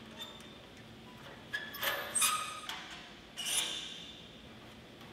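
Steel pipe band clinking against a steel pipe as it is fitted and latched: a few short metallic clinks with a brief ring, the loudest about two and three and a half seconds in, over a faint steady hum.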